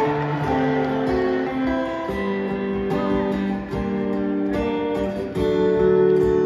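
Two acoustic guitars playing a slow instrumental passage live, with sustained chords and picked notes and no singing.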